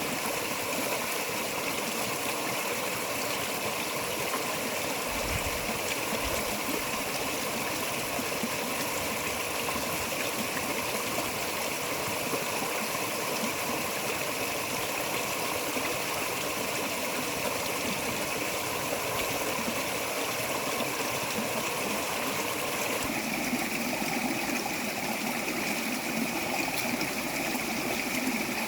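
Steady rushing noise of flowing water. Its tone changes abruptly about 23 seconds in.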